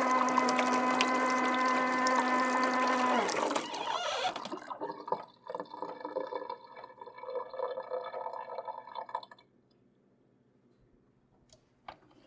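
Noisy kitchen sink tap running with a loud steady humming tone over the rush of water. About three seconds in, the tone falls in pitch and the sound drops to a quieter, uneven running with faint tones, which stops about nine seconds in; a single click near the end.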